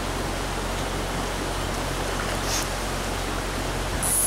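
Stream water flowing over a rocky riffle, a steady rushing. A faint high hiss comes about two and a half seconds in, and a brief louder one near the end.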